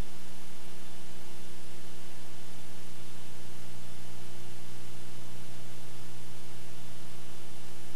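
Steady, even hiss with a constant low electrical hum: the noise floor of an old home videotape recording, with no crowd or game sounds standing out.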